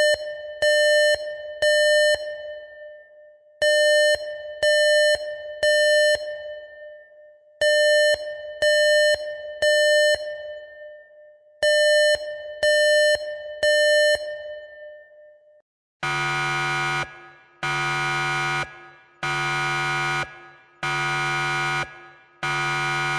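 Emergency alarm sound effects: an electronic alarm beeping in repeating groups of three, each beep ringing off, the three-beep pattern of a fire evacuation signal. About sixteen seconds in it switches to a harsh, low buzzer-horn sounding in steady blasts about a second long.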